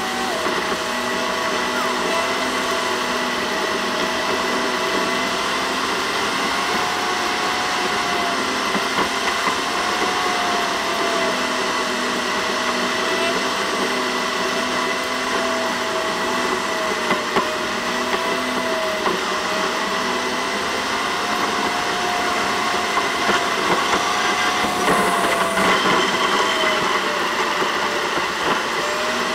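In-car road and engine noise from a dashcam, played at eight times speed so that it becomes a steady, high-pitched machine-like whine. A tone in it drifts slowly up and down with the engine speed.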